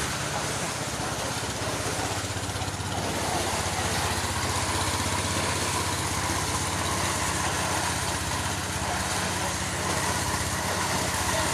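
Engine-driven corn thresher running steadily: a constant engine drone under a dense, even noise from the machine.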